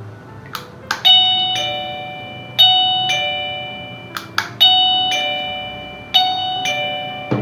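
Wireless doorbell receiver playing a two-note ding-dong chime four times in a row, each chime ringing out and fading. The presses of its self-powered button during a waterproof test set it off, with a few short clicks heard between the chimes.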